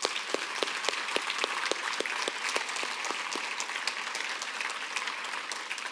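Congregation applauding: many hands clapping in a steady, dense patter.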